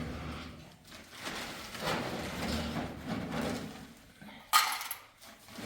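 Soft rustling and handling noise, with a single sharp clatter about four and a half seconds in.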